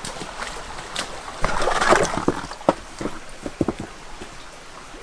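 Water splashing and sloshing as boots wade through a shallow rocky stream, loudest about a second and a half in, over the stream's steady rush. This is followed by a few sharp knocks of stones being lifted and handled in the water.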